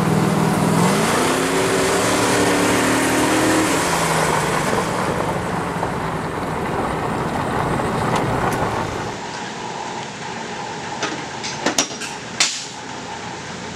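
Vehicle engine revving up, its pitch rising over a few seconds, under steady road noise heard from inside a following vehicle's cabin on a gravel road. After a cut, a steady fan hum with a few sharp metal clinks of tools near the end.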